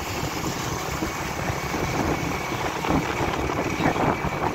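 Yamaha RX 100 two-stroke motorcycle being ridden at a steady speed, heard from on the bike: the engine running under steady wind and road noise.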